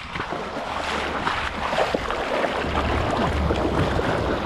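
Water splashing and churning as people swim and scramble through a pond among floating rubber inner tubes, in irregular bursts.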